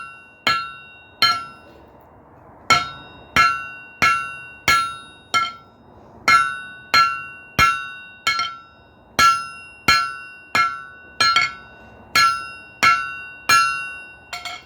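Blacksmith's hand hammer upsetting the end of a hot 3/4-inch square mild steel bar: about twenty ringing blows at a steady pace of roughly one and a half a second, with a short pause about a second in.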